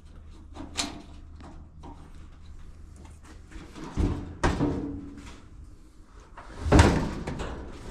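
Knocks and clatter of dryer parts being handled and fitted back together: a light knock about a second in, a few more in the middle, and the loudest bang near the end.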